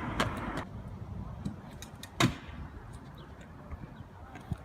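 Low steady background rumble with a few short sharp knocks or clicks, the loudest about two seconds in.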